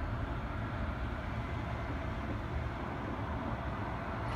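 Steady low rumble of distant city and railway traffic, with no single train standing out.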